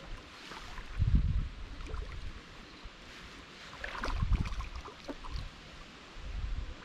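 Shallow river water splashing and sloshing as a hooked chub is drawn in to the bank and reached for by hand. A few low rumbles on the microphone come and go, the strongest about a second in and about four seconds in, where the splashing is busiest.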